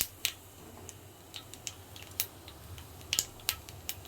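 Nigella seeds (kalo jeere) crackling in hot oil in a kadai: irregular sharp pops and ticks, about a dozen scattered through, over a faint low hum.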